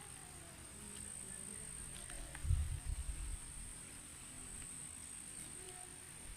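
Insects keeping up a steady, high-pitched trill. About two and a half seconds in, a second of low rumbling thumps on the microphone is the loudest sound.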